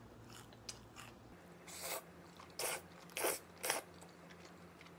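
Close-miked eating: quiet mouth sounds of chewing, then four short slurps of black-bean-sauce noodles (jjajangmyeon) between about two and four seconds in.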